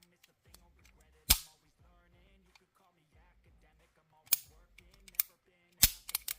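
Bersa Firestorm .380 pistol's action being worked during a function check with an empty magazine: sharp metallic snaps of slide and hammer. One loud snap about a second in, another about four seconds in, a lighter click, then a quick run of snaps near the end.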